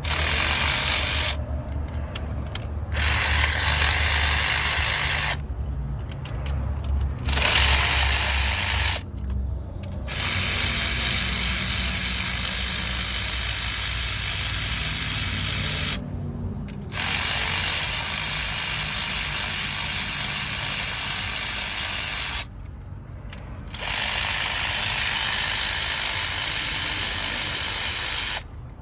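Cordless power tool spinning out the rocker shaft bolts on a 6.4 L Hemi V8, in runs of a few seconds with short pauses between them.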